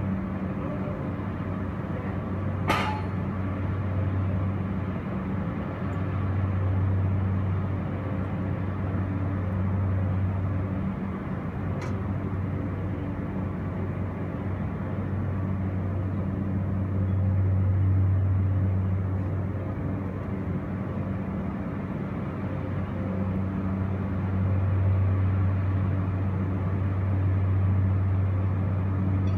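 Steady low machine hum that swells and eases every several seconds, with one sharp click a few seconds in and a fainter click later.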